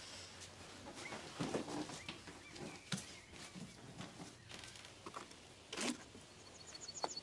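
Quiet shuffling and soft knocks as two people get up off a wooden settee and move away. A single sharp knock comes just before six seconds in, and a short, fast run of bird chirps follows near the end.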